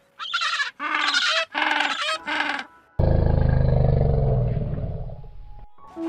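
King penguins calling: about four short, warbling, trumpet-like calls in quick succession. About halfway through, a loud, low animal call with a rapid pulse starts suddenly and fades away over the following seconds.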